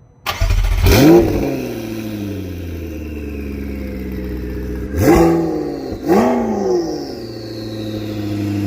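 McLaren 650S Spider's twin-turbo V8 bursts in with a rev flare, then settles to a steady idle whose pitch slowly sinks. About five and six seconds in the throttle is blipped twice, each rev rising and dropping back quickly.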